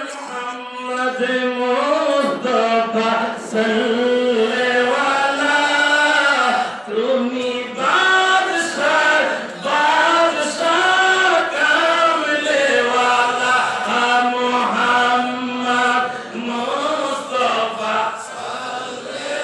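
A man's voice singing a devotional chant into a microphone, in long melodic held notes.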